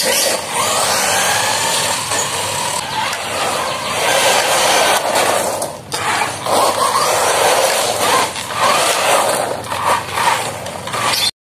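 Subotech BG1513 1/12-scale RC buggy's electric motor whining, its pitch rising and falling with the throttle, over the hiss of its tyres running through water on wet asphalt. The sound drops briefly about six seconds in.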